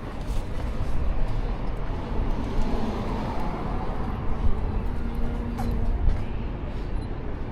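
City street noise with a motor vehicle passing close by. Engine and tyre noise swells about two to three seconds in over a steady low rumble of traffic.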